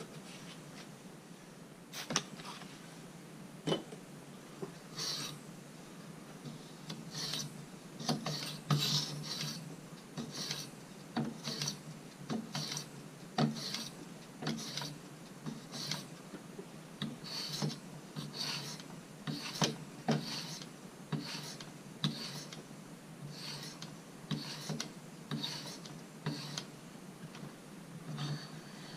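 Pocket knife blade being sharpened on a medium-fine 20/14-micron stone of a guided sharpener: short rasping strokes of the stone along the edge, about one a second and somewhat uneven.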